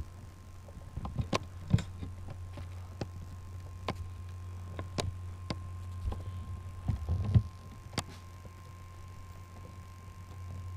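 Steady low hum of room noise with scattered light clicks and taps, and a few soft low thuds about seven seconds in; no snoring.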